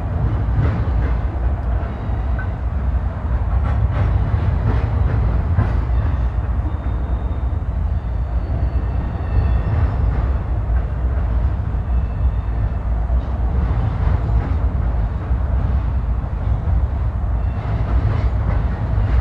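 Freight train rolling along the tracks: a steady low rumble of wheels on rail, with scattered clicks of wheels over rail joints and a few faint high squeals in the middle.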